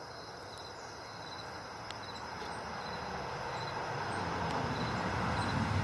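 Low vehicle noise that slowly grows louder, with crickets chirping in the background.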